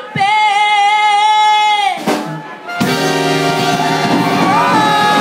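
Music: one long held note for about two seconds, then after a short break a full band playing with brass instruments.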